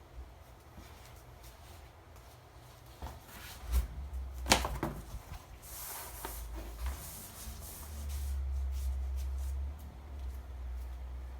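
A few sharp knocks and clicks with some rustling, the loudest about four and a half seconds in, over a low steady hum that swells for a couple of seconds near the end.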